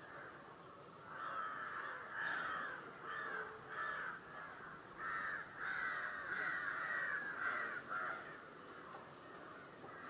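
Birds calling outdoors: a run of short repeated calls, several overlapping, starting about a second in and fading out about eight seconds in.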